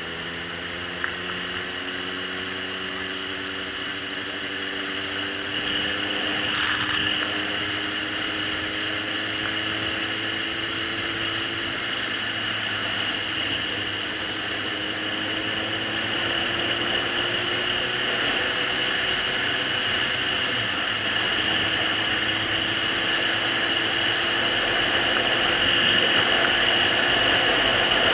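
Suzuki GSR750's inline-four engine running under way, its note climbing slowly in two long stretches as the bike gathers speed, over steady wind noise.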